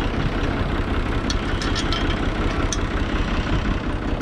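1984 Türk Fiat 480 tractor's three-cylinder diesel engine idling steadily, with a few light clicks over it in the middle.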